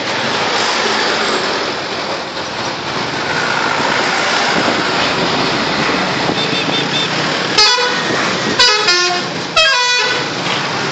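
A bus's telolet horn, a set of musical air horns, playing a quick tune that steps through several notes, in three short bursts near the end. Steady traffic and engine noise runs underneath.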